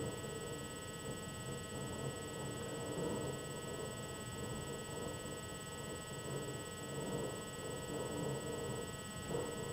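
Steady electrical hum and thin high whine from the recording, over a faint low rumble of room noise; no distinct sound events.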